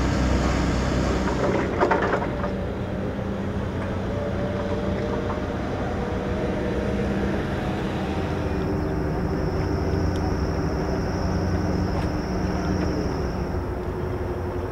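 Steady engine drone of a warship and its tugboats in harbour, with even background noise. There is a short loud clatter about two seconds in, and a thin high whine comes in near the middle and fades out near the end.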